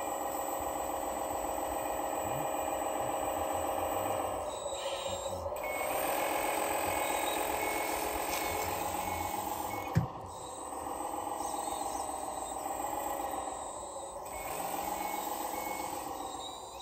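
RC 1:14-scale Caterpillar 980L wheel loader running steadily as it drives and works its bucket in gravel, a pitched mechanical whine that dips and shifts a few times. A single sharp click about ten seconds in.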